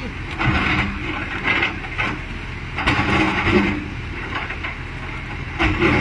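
Kobelco hydraulic excavator's diesel engine running steadily, with several louder bursts of harsh mechanical clatter and scraping as the machine works its bucket against the slope.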